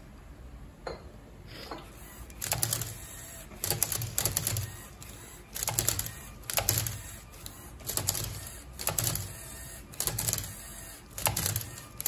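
LEGO Mindstorms Robot Inventor MindCuber robot at work on a Rubik's cube: its motors whir and its plastic arms, gears and cradle clatter as it grips, flips and turns the cube. The clattering comes in quick repeated bursts, about one to two a second, beginning after a few faint clicks.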